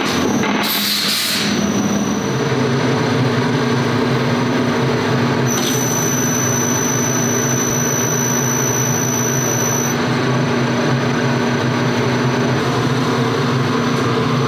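Industrial electric stirrer motor running steadily as it mixes a liquid in a tin can, giving a constant machine hum. A thin high whine comes in about halfway through, and there is a short hiss about a second in.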